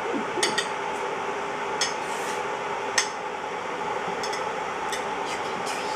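Metal chopsticks clicking and tapping against a ceramic plate, about eight short sharp clinks spread irregularly over a steady background hum.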